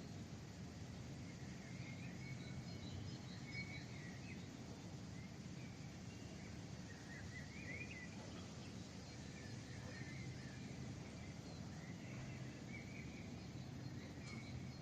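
Steady low hum of a city at dawn, with faint, scattered short bird chirps over it.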